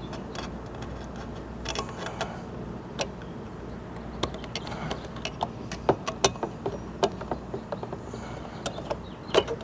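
Irregular small clicks, ticks and rattles of needle-nose pliers and bundled control wires being worked by hand as the wiring is pulled free.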